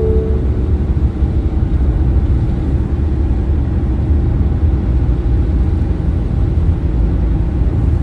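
Steady low rumble of a moving car's road and engine noise.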